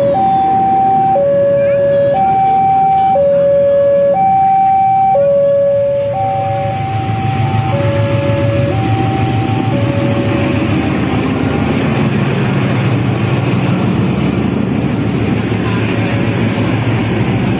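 Railway level-crossing alarm sounding its electronic two-tone ding-dong, the two pitches alternating about once a second. From about six seconds in, a CC 206 diesel-electric locomotive and its train pass close by: engine running and wheels rolling on the rails in a steady rumble. A fainter crossing alarm carries on under it for a few more seconds.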